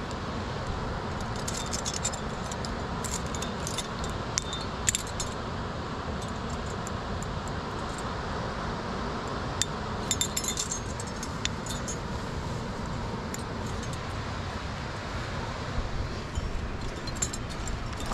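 Metal climbing gear, carabiners and quickdraws, jingling and clinking on a harness in short clusters several times, over a steady low rush of noise.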